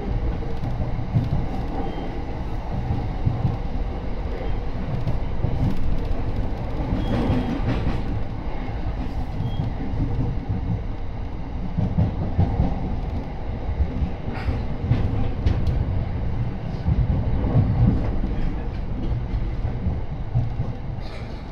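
Running noise inside a moving Yokosuka Line commuter train: a steady low rumble of wheels on rail, with a few sharp clicks scattered through.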